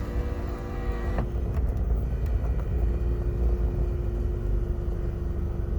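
Car running, a steady low rumble heard from inside the cabin, with a faint steady hum; a set of steady tones cuts off about a second in.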